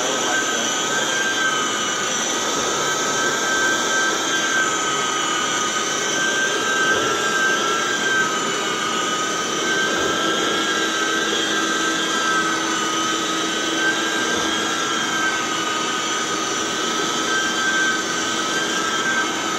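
Rotovac DHX carpet extraction cleaner running steadily, its vacuum motors giving a constant whine with two high tones that waver slightly, as the rotary cleaning head scrubs and extracts along the carpet.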